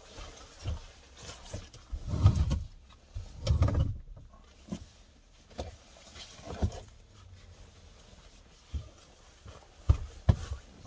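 Padded down jacket rustling and brushing close to the microphone as someone moves about in the car, with irregular soft thumps, the heaviest about two seconds and three and a half seconds in, and a few sharp knocks near the end.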